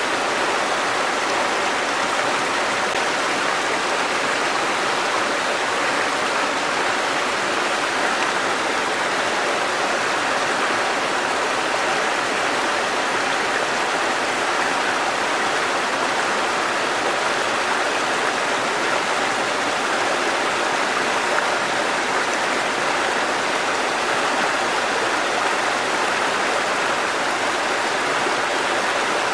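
Small waterfall, a thin curtain of water falling onto rocks and into a pool, splashing steadily without change.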